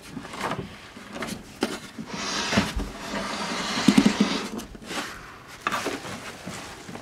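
Handling noise on a wooden console radio cabinet: irregular knocks and clicks, with two longer rubbing sounds in the middle.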